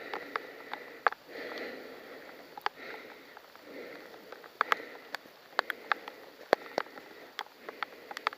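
A person breathing close to a helmet-mounted camera's microphone, in and out about once every second or so, with sharp irregular clicks and snaps scattered through, more of them after the halfway point.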